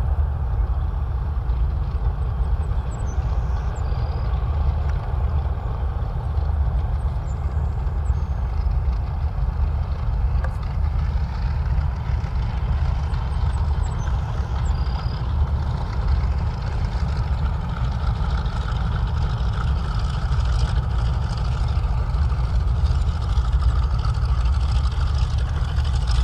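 The twin Wright R-2600 radial engines of a North American B-25 Mitchell bomber running at taxi power as it rolls by, a steady deep rumble. The rumble grows a little louder and brighter in the last several seconds.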